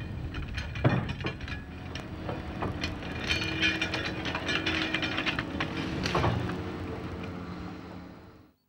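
Hitachi EX200LC hydraulic excavator's diesel engine running, with repeated metallic clanks and knocks as the machine works. The sound fades away just before the end.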